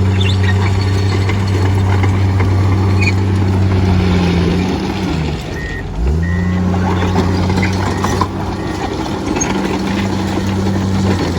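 Komatsu D51EX-22 bulldozer's diesel engine running at steady high speed. About halfway through its pitch sags sharply and then pulls back up. A few short high beeps sound near the middle and near the end.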